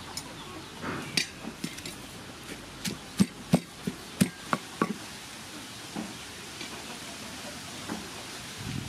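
Wooden pestle pounding tamarind, chili and garlic in a wooden mortar: a run of irregular sharp knocks, loudest a few seconds in, tapering to a few lighter taps near the end.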